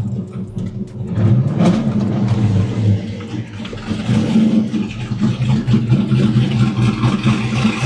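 A vehicle engine running, its level swelling and dipping.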